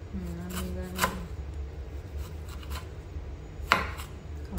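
Kitchen knife cutting young jackfruit on a wooden chopping board: a few sharp knocks of the blade hitting the board, the loudest about a second in and near the end, with softer slicing ticks between.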